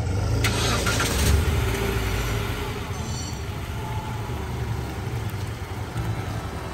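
Steady low rumble of a motor vehicle engine running, with a brief swell of noise about a second in.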